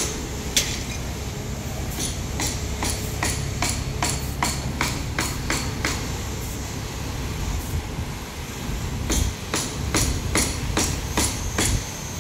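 Track maintenance vehicle's engine running low as it pulls away along the rails, with a series of sharp clacks, about two a second, that break off about six seconds in and return about three seconds later.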